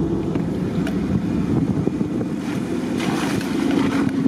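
Car engine running steadily, heard from inside the cabin while driving slowly along a muddy, rutted dirt track, with small rattles and a brief rush of noise about three seconds in.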